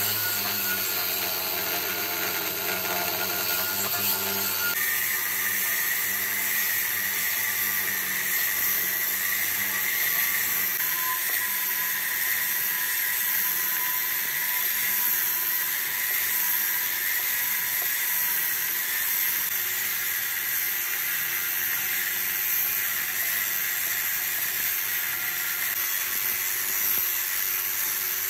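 Handheld electric angle grinder with a cut-off disc cutting a steel bar, running steadily under load. Its note shifts higher about five seconds in.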